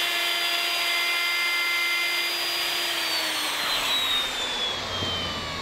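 Electric plunge router running with a steady whine, then switched off about three seconds in and spinning down, its pitch falling. It is being used to rout the letterbox slot in an oak door.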